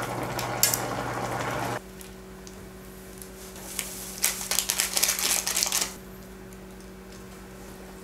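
Water boiling hard in a stainless saucepan, which cuts off abruptly about two seconds in. Then, from about four to six seconds in, a quick run of fine crackling and rustling as powdered cheese is shaken from a plastic packet onto noodles in the pan, over a faint steady hum.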